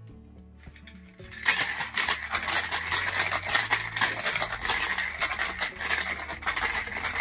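Ice rattling in a stainless steel cocktail shaker being shaken hard: a fast, continuous rattle that starts about a second and a half in, over background music.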